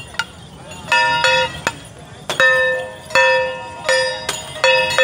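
Procession music: a horn plays short held notes at two or three pitches, one after another, with sharp percussion clicks between them.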